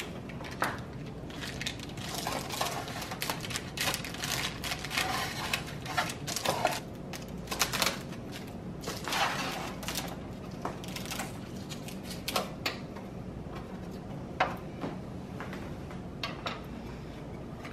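Slotted metal spatula scraping and clicking under a fruit galette on a parchment-lined metal baking sheet, prying it loose from burnt, hardened juice. Irregular scrapes and clicks come one after another.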